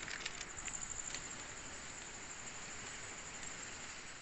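Faint steady high trill of night insects, with a few soft footstep crunches in the first second or so.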